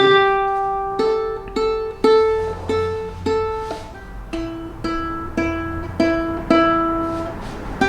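Ukulele being tuned: single open strings plucked one at a time, each note ringing and fading. One string is plucked about every half second several times, then a lower string is plucked the same way.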